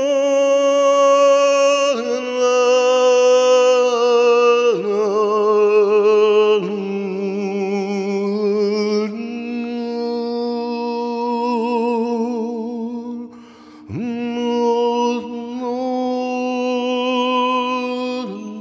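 Slow vocal toning music: layered voices holding long sung notes over a steady low drone, moving to a new chord every few seconds. A short dip with a falling slide comes about fourteen seconds in.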